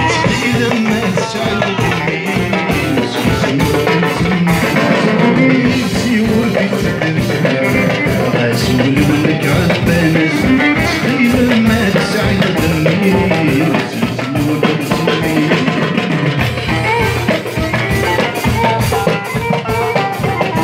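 Live band music: an oud and an acoustic guitar played over a drum kit keeping a steady beat, with a man singing.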